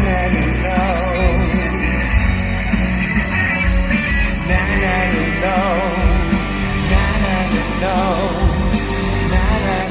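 Live band playing a pop-rock song, with a steady drum and bass beat and a wavering melody line on top.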